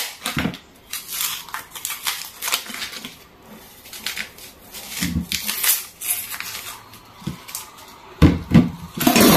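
Dry, papery onion skin crackling and rustling in irregular bursts as it is peeled off by hand, with a few louder knocks near the end.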